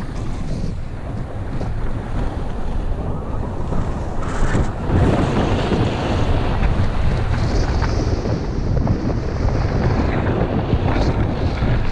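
Wind buffeting the microphone of a body-worn camera during a fast downhill ski run, over the steady hiss and scrape of skis sliding on groomed snow. The ski scrape swells louder about four to five seconds in, as in a carved turn.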